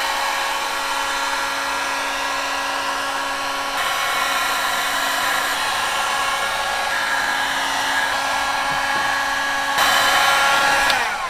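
Handheld electric heat gun running steadily, a fan whine over rushing hot air, as it warms a headlight's old lens sealant so it sticks again. Near the end its whine falls away as it winds down.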